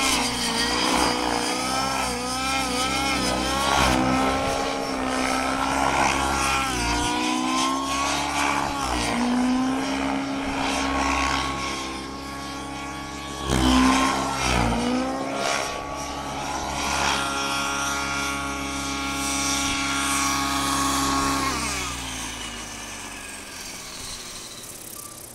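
Align T-Rex 700 radio-controlled helicopter flying aerobatics, its whine rising and falling in pitch as the throttle and rotor speed change, with a louder rush of blade noise on a close pass about halfway through. Near the end the pitch slides down and the sound fades as the helicopter lands and spools down.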